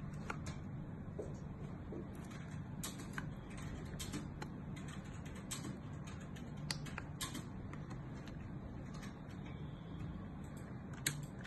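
Handling noise of a small plastic kids' camera being worked into a soft silicone cover: scattered light clicks and rubbing over a steady low hum, with a sharper click about eleven seconds in.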